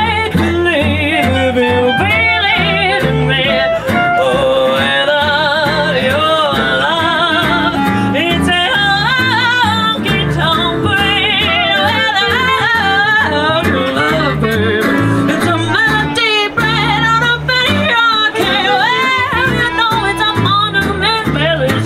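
A song: a singer's voice with a wide vibrato over guitar and a steady bass line.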